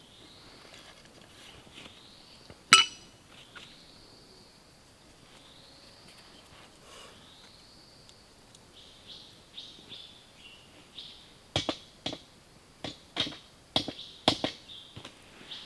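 A bird calling over and over, each call a short rising-and-falling whistle. One sharp crack about three seconds in, and in the last few seconds a run of sharp knocks, about two a second, as a tool taps on a wooden saw frame.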